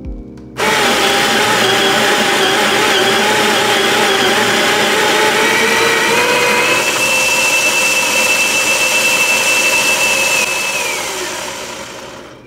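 Baratza Sette 270 coffee grinder grinding espresso beans into a portafilter. It starts suddenly, runs loud and steady with a whine that rises in pitch about halfway through, then winds down and fades near the end.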